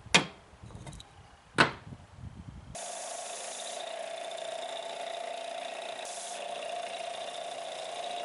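Two sharp strikes splitting black walnut, about a second and a half apart, then a power tool running steadily with a constant whine from about three seconds in.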